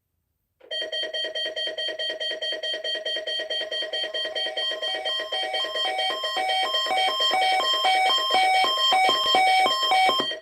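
Synthesized electronic alarm sounding as the attention signal of a homemade mock emergency alert. A fast-pulsing tone, about five pulses a second, runs over steady high tones; about four seconds in, a run of short beeps joins, stepping up and down in pitch. It grows louder in the second half and cuts off near the end.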